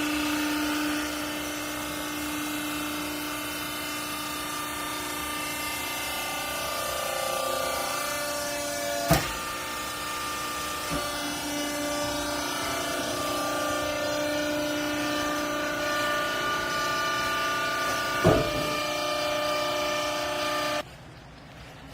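Vertical hydraulic clothes baler's electric hydraulic pump running with a steady whine that shifts pitch a few times as the press works. Two sharp clunks come about 9 and 18 seconds in, and the machine cuts off abruptly just before the end.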